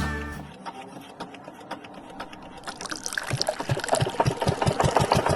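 Small motor running with a rapid, regular clatter of clicks that grows louder and slightly quicker from about halfway in, after background music fades out at the start.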